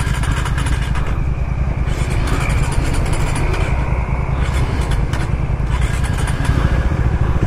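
Motorcycle engine running steadily at a standstill, on a bike that had been refusing to start; the rider suspects the spark plug.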